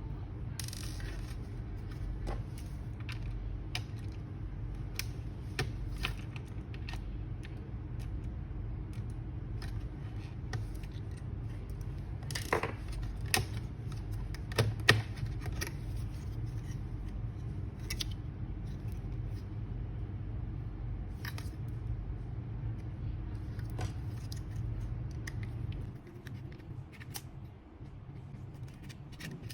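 Scattered small clicks and taps of tools and plastic laptop parts being handled, irregular and sometimes in quick clusters, over a steady low hum. The hum drops off about 26 seconds in.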